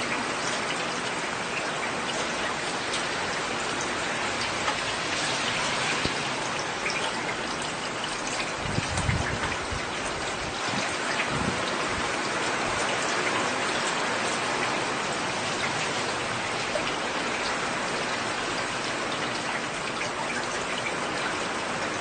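Heavy rain falling steadily, a dense hiss with scattered sharp ticks of single drops. A brief low rumble comes about nine seconds in and again around eleven seconds.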